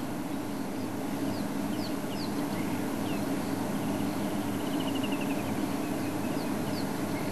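Steady low hum of an idling game-drive vehicle's engine. Small birds call over it: a few short, falling chirps, a quick trill of repeated notes about halfway, and two more chirps near the end.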